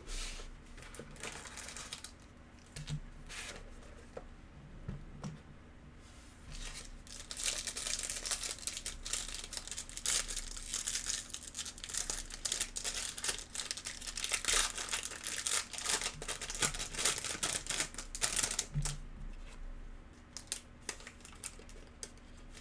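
A foil-wrapped trading-card pack (Panini Origins) being torn open and crinkled in the hands. The wrapper makes dense crackling from about seven seconds in to about nineteen seconds. Before that the box and packaging give scattered crackles, and after it there are only a few light rustles.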